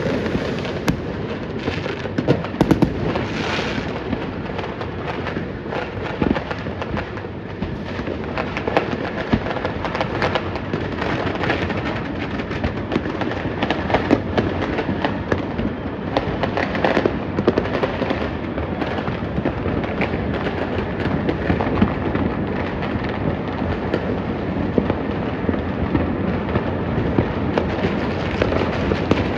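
Fireworks and firecrackers going off in a dense, near-continuous crackle of overlapping bangs, with no break.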